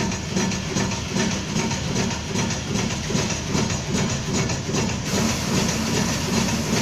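Automatic through-hole component insertion machine running, its insertion heads working over a printed circuit board with a steady, rapid mechanical clatter.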